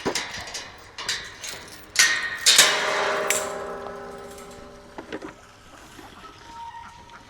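Metal clanking: a few knocks, the loudest two about two seconds in, leaving a ringing tone that fades over several seconds, then a couple of lighter knocks.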